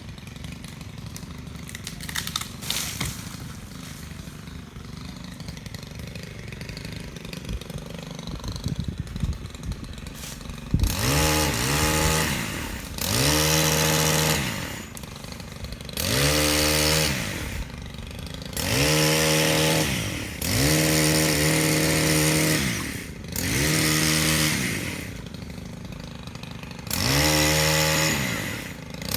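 Chainsaw engine idling for about ten seconds, then revved hard about seven times in bursts of a couple of seconds, its pitch rising, holding and falling back to idle between each.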